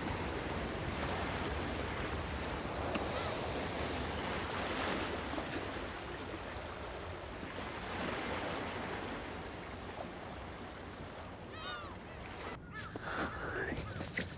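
Sea waves washing against the shore with wind: a steady wash of surf that swells and eases. Near the end come a few short chirps.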